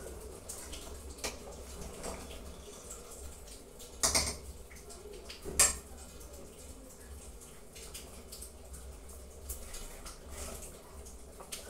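Metal ladle stirring soup in a stainless steel pot, knocking loudly against the pot twice, about four and five and a half seconds in, with a few lighter taps between, over a steady watery hiss from the simmering pot.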